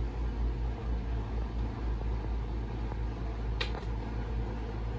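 A steady low rumble, with one sharp click about three and a half seconds in as a security-camera mount is fitted to the porch eave.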